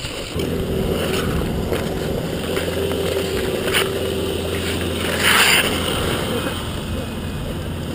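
Steady low rumble of wind on the microphone and skate blades gliding over rough outdoor ice, with a brief louder scraping hiss about five seconds in.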